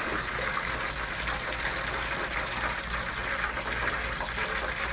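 Chicken wings frying in hot lard: a steady, even sizzle.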